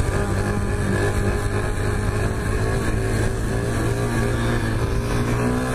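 125 cc dirt bike engine running at a steady cruise, its pitch rising slightly near the end.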